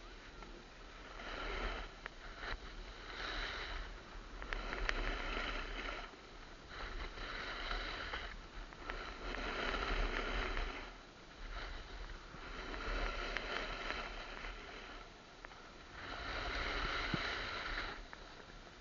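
Snowboard edge scraping over hard-packed groomed snow as the rider turns down the slope, swelling and fading about seven times, every couple of seconds.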